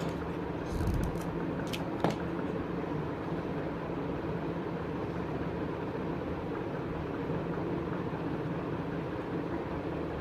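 Steady background hum, with a few light handling clicks about a second in and a sharp knock about two seconds in as a hot glue gun is put down on the table.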